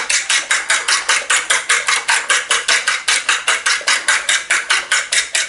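A fork whisking eggs briskly in a porcelain bowl, clicking against the bowl in a fast, even rhythm of about five strokes a second, stopping near the end.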